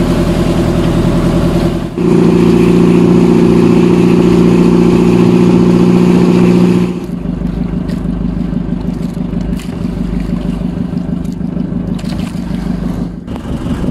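Engine of a motorized outrigger fishing boat running steadily under way. It turns abruptly louder about two seconds in and drops back to a lower level about seven seconds in, with a few small clicks over the engine in the later part.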